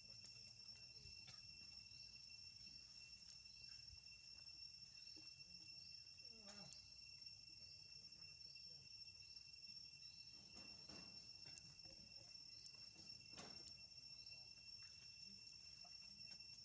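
Faint, steady high-pitched insect drone, with a few faint brief sounds about six, eleven and thirteen seconds in.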